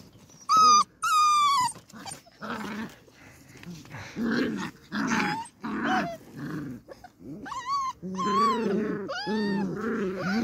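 Beagle puppies play-fighting: two high-pitched yelps about half a second in, then a string of short puppy growls, and high whines and yips mixed with low grumbling near the end.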